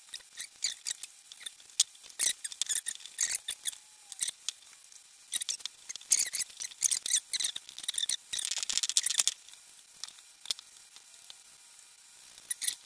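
Clear plastic vacuum-bag film crinkling and rustling as gloved hands wrap and press it around a wet fibreglass lay-up, in irregular crackles that are loudest between about six and nine seconds in.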